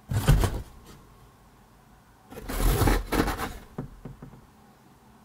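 Cardboard box flaps being pushed and rubbed together: a short scraping rustle at the start and a longer one about two and a half seconds in.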